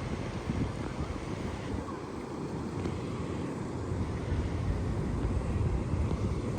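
Wind buffeting the microphone: a steady low rumbling noise that flutters unevenly.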